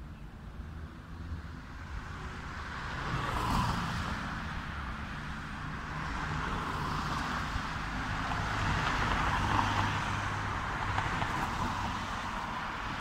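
Road traffic: cars passing on a city street, their tyre and engine noise swelling as one goes by about three and a half seconds in, and again, longer, around nine to ten seconds in.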